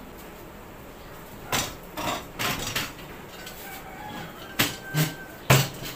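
Plastic folding table with metal legs knocking and clattering as it is handled and turned upright: a quick run of sharp knocks about a second and a half in, then a few heavier thumps near the end.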